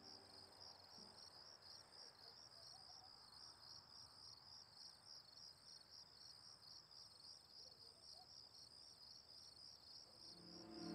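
Faint crickets chirping in a steady, evenly pulsing high trill, with music swelling in near the end.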